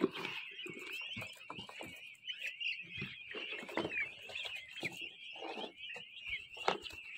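A flock of peachicks (young Indian peafowl) peeping all together in a dense, continuous chatter of high chirps, with scattered soft knocks underneath.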